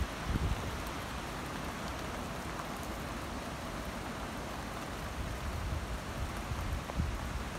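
Steady rain falling, an even soft hiss, with a low rumble of wind on the microphone underneath.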